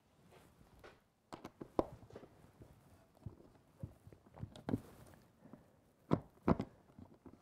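Irregular wooden knocks and clicks of pallet-wood pieces and a hand tool being handled: a tool poked into the bolt holes of a table leg and the leg shifted against the tabletop, checking whether the holes line up. The loudest knocks come about a quarter of the way in and near the end.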